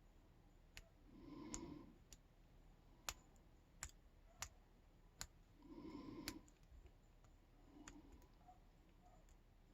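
Faint, sharp, irregular clicks of a lock pick and tension tool working the pins and warding inside a Yale K300 padlock during single-pin picking, with soft breathing twice.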